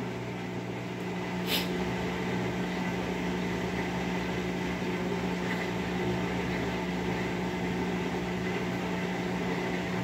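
Whirlpool top-load washing machine's drain pump running with a steady electric hum as the machine drains water during its recalibration cycle, with a brief click about a second and a half in.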